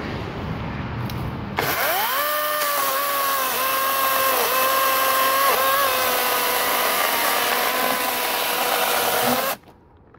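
Greenworks 40-volt GMax brushless cordless chainsaw's electric motor whining as it spins up, then running steadily with its pitch dipping briefly a few times as the chain bites into a log. The whine cuts off suddenly near the end. Low rustling comes before the saw starts.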